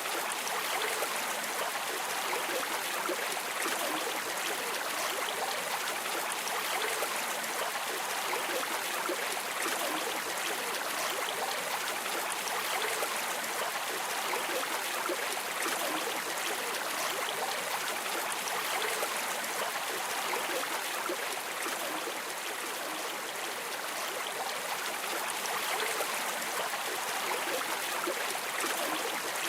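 Stream water running steadily over rocks, with bubbling and trickling.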